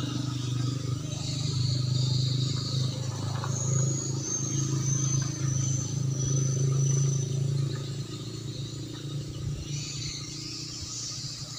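Steady low drone of a running engine, with thin high chirps over it from about four to seven seconds in; the drone eases after about eight seconds.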